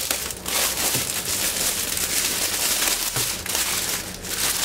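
Clear plastic bag crinkling as a rolled diamond painting canvas is slid out of it, with a few sharper crackles along the way.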